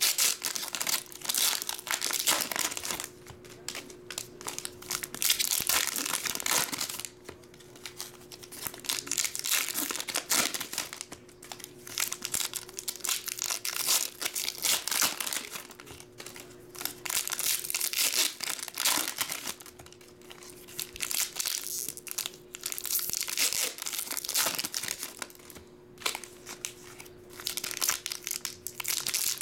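Foil Pokémon booster pack wrappers being torn open and crinkled by hand, in repeated bursts with short pauses between as one pack after another is opened. A faint steady hum runs underneath.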